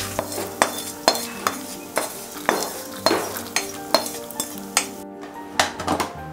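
A wooden spatula stirring dried red chillies and lentils roasting in a steel kadai, knocking and scraping against the pan about twice a second.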